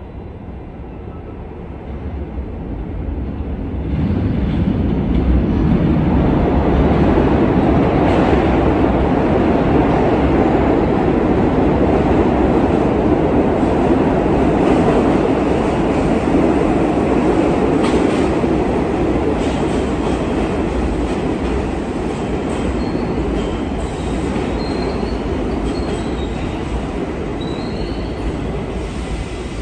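Kawasaki R68A subway train pulling into an underground station. Its rumble of wheels on rail rises about four seconds in and stays loud as the cars roll past the platform, easing a little near the end. Brief high wheel squeals come near the end.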